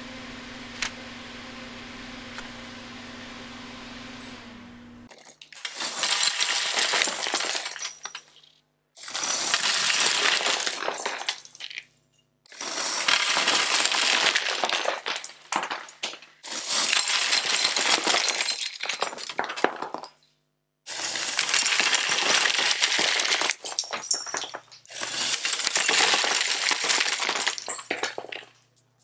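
Many small plastic building bricks clattering and scattering in six loud bursts of a few seconds each, after a steady low hum with a couple of clicks.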